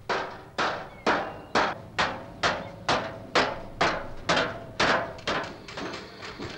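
Hand hammer beating sheet metal in a steady rhythm, about two blows a second, each blow ringing briefly. Near the end the blows turn lighter and quicker.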